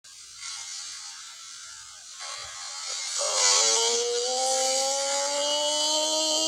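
Slowed-down audio of a slow-motion replay: a low, smeared buzzing noise that about three seconds in turns into a drawn-out, slowly rising pitched drone, like a stretched-out voice or motor sound.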